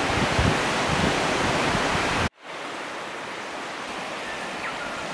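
Steady outdoor rushing noise, louder for about two seconds, then cut off suddenly and followed by a quieter, similar rush.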